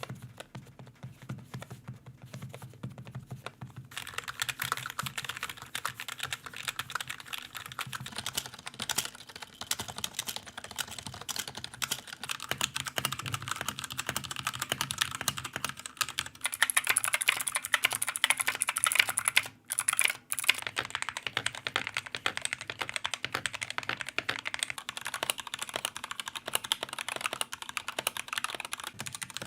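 Fast typing on a series of different keyboards in turn, a dense run of key clicks and clacks. It is quieter and duller for the first few seconds, grows louder and brighter about 4 s in, shifts again around 16 s, and breaks off briefly near 20 s before another board takes over.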